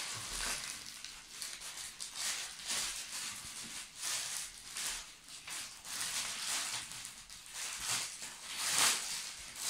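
Clear plastic zip-lock bags rustling and crinkling in gloved hands as cloth face masks are packed into them, in irregular bursts with the loudest crinkle near the end.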